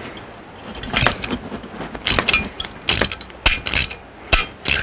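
A wrench working a tight gas burner orifice loose from a Dometic RV furnace's burner assembly: a series of about six short, sharp strokes, some with a brief squeak, as the stuck orifice threads turn.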